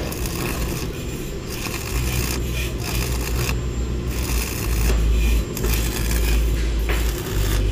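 Stick (arc) welding on a steel roof frame: the electrode arc crackling and hissing, briefly breaking off a couple of times, over a low rumble.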